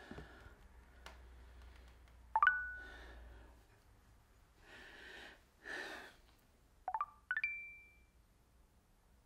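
Chat-app message alert tones: a quick rising chirp settling on a short held tone, then about four and a half seconds later a fast double chirp ending on a higher held tone, marking a message received and then one sent. Soft breaths come between the alerts.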